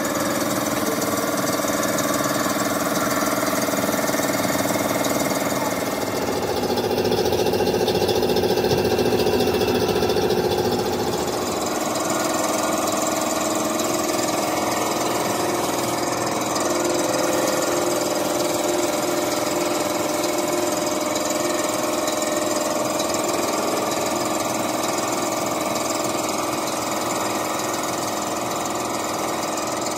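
Air compressor running steadily under the continuous hiss of a compressed-air paint spray gun, the machine's hum shifting slightly about six seconds in and again near twelve seconds.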